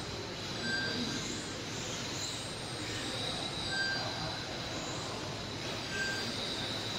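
Electric radio-controlled Tamiya F1 model cars racing, their motors whining high and rising and falling in pitch as the drivers work the throttle. A short beep sounds three times, a couple of seconds apart.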